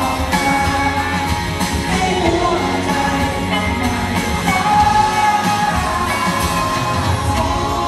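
Live band performing a song, with a singer holding long sung notes over full instrumental backing.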